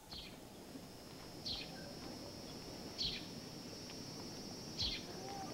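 Outdoor ambience under trees: a steady high insect drone, with a short falling bird chirp repeated four times, about every second and a half, over a low background hum of street noise.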